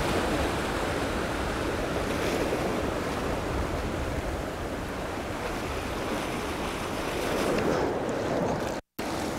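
Ocean surf washing in against coastal rocks, a steady wash of waves. It drops out abruptly for a split second near the end.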